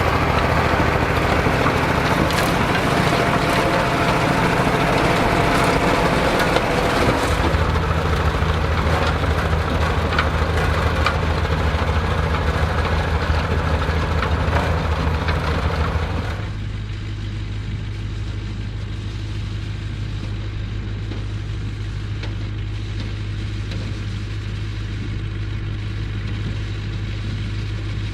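Vintage tractor engine running steadily under load, with a clatter of harvesting machinery over it. About 16 seconds in, the sound changes abruptly to a quieter, steady low engine hum.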